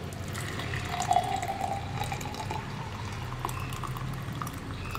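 Unstrained green tea poured from a stainless-steel saucepan into a glass mug: a steady stream of liquid splashing and trickling into the glass as it fills.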